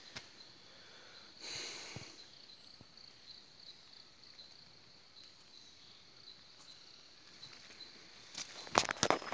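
Faint, steady insect trilling in a high, slightly pulsing tone. A short rustle comes about a second and a half in, and a burst of loud crackling knocks near the end.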